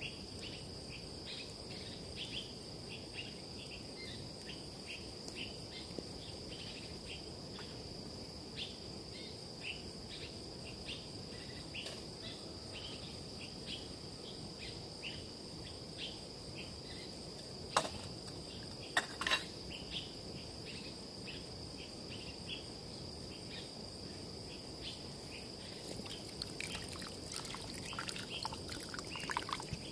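Forest insects droning steadily on one high pitch, with many short chirps scattered through. Two sharp clicks stand out about two-thirds of the way through.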